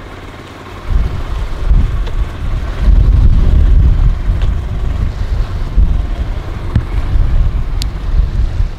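Wind buffeting the microphone in gusts, a heavy low rumble, with the small duck boat's gas-engine surface-drive mud motor running faintly underneath.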